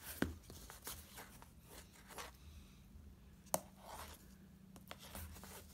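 Faint scraping and handling as a utility knife blade works at the electrical tape wrapped around a power cord splice, with a few short clicks, the sharpest about three and a half seconds in.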